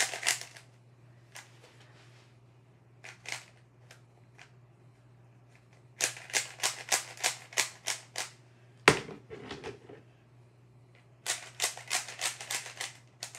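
Plastic puzzle cubes being turned by hand: quick runs of clicking layer turns, about four or five a second, separated by pauses with a few single clicks. One louder knock comes about nine seconds in.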